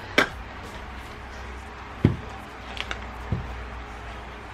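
Metal food cans being set down and stacked on a kitchen counter: a sharp clink just after the start, then two dull knocks about two and three seconds in, over a faint low hum.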